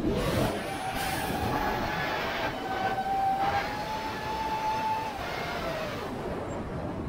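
FPV quadcopter's motors running with a steady whine, the pitch creeping up and then falling away about five seconds in, over heavy wind noise on the onboard camera's microphone.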